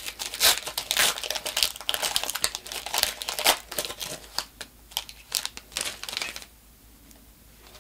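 Foil Pokémon booster pack wrapper crinkling as it is worked open by hand, a dense run of sharp crackles that stops about six and a half seconds in.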